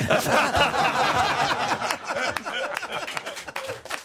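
Several people laughing and talking over one another, the laughter dying down toward the end.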